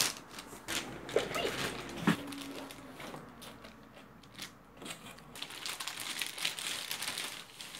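Cardboard shipping box and foam packing being handled, with scattered knocks. In the second half a plastic bag crinkles as a laptop is pulled out of it.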